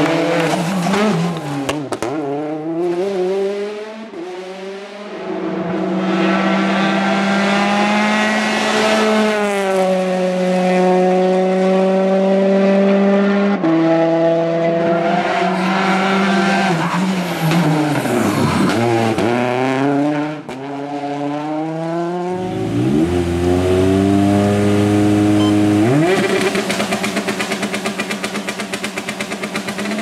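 Peugeot 208 T16 rally car's turbocharged 1.6-litre four-cylinder engine driven hard on a stage: the engine note climbs and holds, steps with gear changes, drops sharply and picks up again about two-thirds of the way in, and turns to a fast low pulsing near the end.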